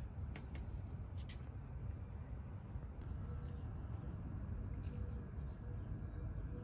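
Outdoor background: a steady low rumble, with a few sharp clicks in the first second and a half and another about five seconds in, and faint short high chirps in the middle.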